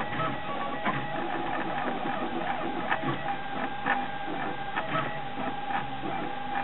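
Prusa i3 RepRap 3D printer running a print: its stepper motors buzz in short bursts that keep changing pitch as the print head and bed move. A steady whine and sharp ticks now and then run underneath.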